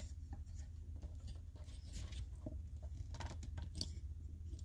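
Faint handling noise from a tripod's ball-head mount being twisted and gripped by hand in an attempt to remove it: scattered small clicks and scratches over a steady low hum.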